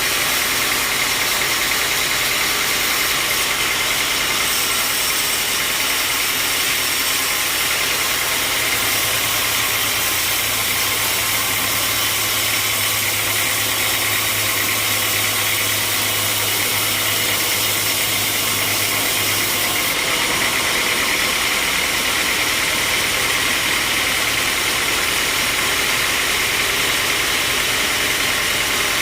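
Sawmill machinery running steadily, a continuous mechanical noise with a low hum added from about nine to twenty seconds in.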